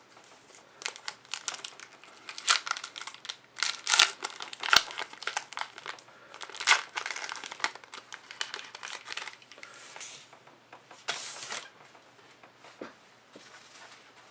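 A trading card pack wrapper being torn open and crinkled by hand: irregular crackling and rustling, loudest in the first half, with another burst about eleven seconds in before it thins out.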